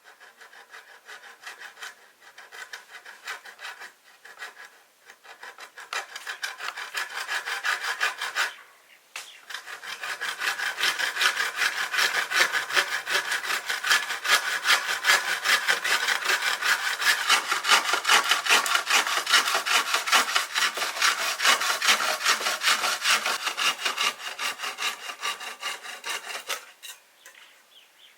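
Hand saw cutting wood with quick, even back-and-forth strokes. It pauses briefly about a third of the way in, then saws on steadily and stops shortly before the end.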